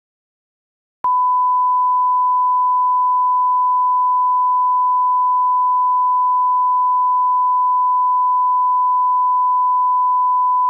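Steady 1 kHz sine test tone, the line-up reference tone at the head of a broadcast tape, switching on abruptly about a second in and holding one unchanging pitch and level.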